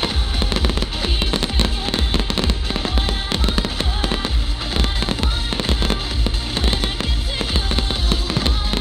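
A dense fireworks barrage: many rapid bangs and cracks from shells bursting overhead, over loud show music.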